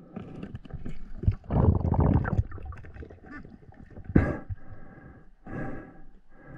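Water gurgling and sloshing around a diver, in uneven bursts, with a sharp knock about four seconds in.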